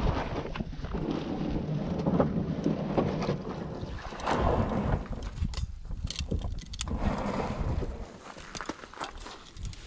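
Wind buffeting the microphone, with rustling and knocking as fishing gear is handled.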